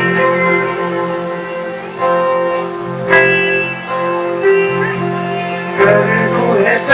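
Live band music in an instrumental break between sung lines: a plucked-string lead melody over held notes, bass and drums, with a few sharp drum or cymbal hits.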